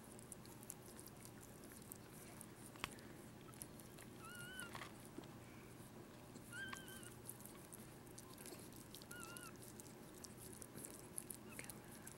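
Newborn Maltese puppy squeaking faintly three times, short wavering high squeaks about four, six and a half, and nine seconds in. Faint wet clicks of the mother dog licking it run underneath.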